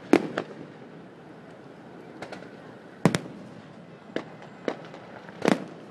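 Aerial fireworks shells bursting in sharp, irregularly spaced bangs: a loud pair just after the start, another loud one about three seconds in, and one more near the end, with smaller reports between.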